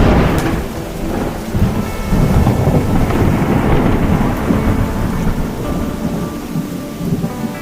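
Close thunder: a sudden crack right at the start, then a long rolling rumble that swells and dies away over about six seconds, with steady rain underneath.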